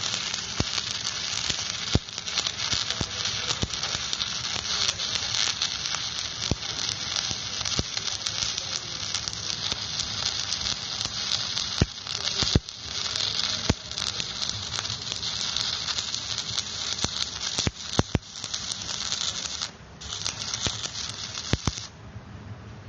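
Electric arc welding: the arc crackles and sizzles steadily, with scattered sharp pops. It breaks off briefly near the end, starts again, then stops.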